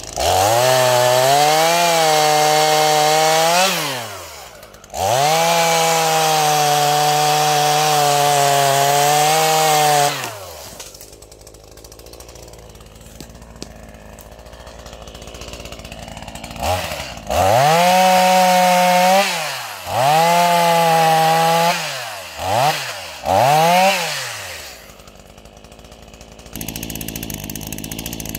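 Stihl MS 212 two-stroke chainsaw revved to full throttle in two long runs of about four and five seconds, then idling. Later comes two shorter full-throttle runs and three quick throttle blips, each pitch rising and falling away as the throttle is released.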